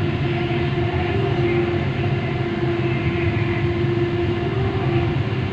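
Bangalore metro train running at speed, heard from inside the carriage: a steady rumble with a constant low whine running through it.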